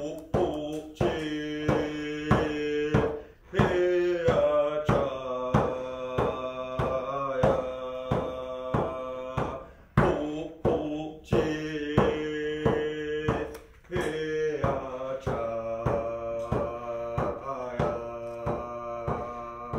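A man singing a Squamish welcome song over a steady beat on a hand drum struck with a beater, about two beats a second. Long held phrases, with short breaks for breath between them.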